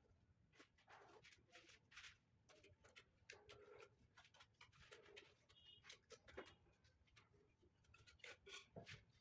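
Faint, irregular scrapes and clicks of a mason's trowel scooping mortar from a bucket and spreading it onto the riser of a stone step.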